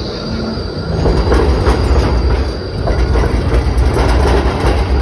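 Melbourne E-class articulated tram passing close, a low rumble with its wheels clacking on the rails, growing louder about a second in as it draws level.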